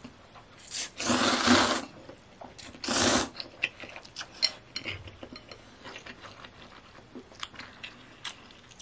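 A person slurping instant noodles from chopsticks twice, about a second in and about three seconds in. Then comes a stretch of chewing with small wet clicks and smacks.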